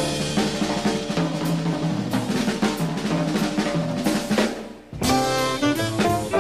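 Jazz drum kit played on snare and cymbals over a plucked upright bass in a swing groove. About five seconds in, the music drops out for a moment, then the band comes back in with a melody line.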